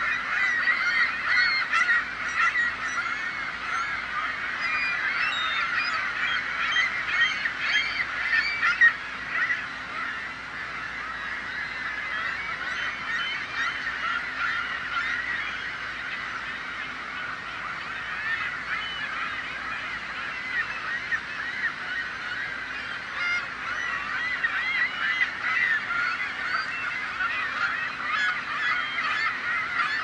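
A flock of gulls calling, many birds at once in a dense run of overlapping calls. It thins out a little through the middle and builds again near the end.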